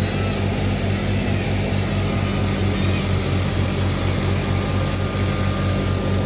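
Fiat 480 tractor's diesel engine running steadily under load, driving a wheat thresher: a continuous low mechanical drone with the thresher's noise mixed in.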